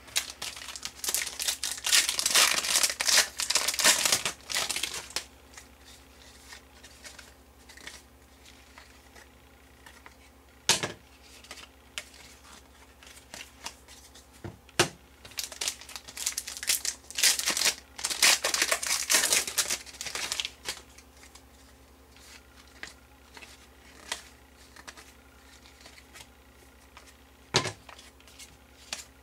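Wrappers of 2011-12 Panini Contenders trading card packs being torn open and crinkled, in two long stretches of crackling, with a few sharp taps between as the cards are handled.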